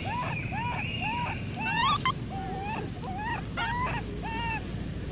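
Baby macaque crying in a run of short, arched, squeaky whimpers, about two a second, with a couple of higher rising squeals near the middle.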